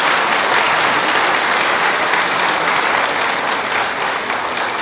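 Audience applauding: a steady, dense wash of clapping after the orchestra's piece ends.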